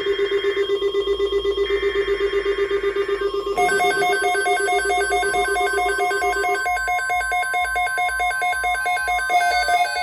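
Electronic weather-alert tones announcing a severe thunderstorm watch. First a buzzy tone beeps in rapid pulses; then, about three and a half seconds in, a fast stepping electronic warble of several pitches takes over, with a thin steady high tone underneath.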